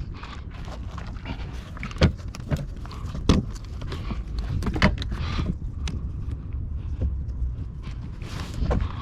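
Scattered sharp clicks and knocks of hand tools and parts being handled during a car battery replacement, over a low steady rumble.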